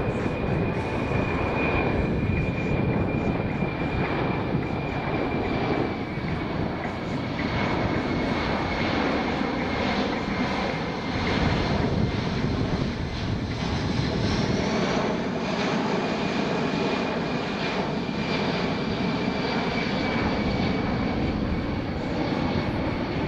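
Boeing C-17 Globemaster III's four Pratt & Whitney F117 turbofan engines in flight: steady jet engine noise with a high whine held throughout, and a fainter higher tone that rises slightly about fourteen seconds in.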